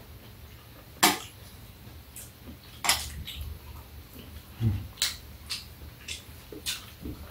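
Metal chopsticks clinking against a metal tray and dishes during a meal: a series of short, sharp clinks, the loudest about a second in.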